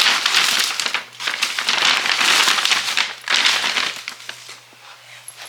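Shopping bags rustling and crinkling as they are handled, in several loud bursts that die down after about four seconds.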